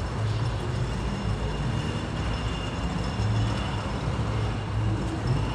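Steady low rumble with faint, thin, high-pitched whines above it, heard while riding an amusement-park chairlift.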